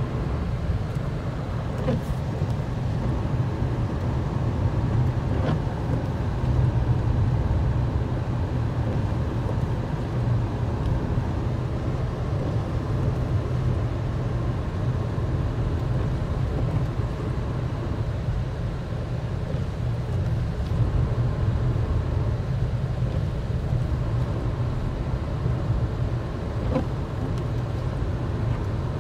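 Steady low rumble of a car's engine and tyres on a snow-covered road, heard from inside the cabin.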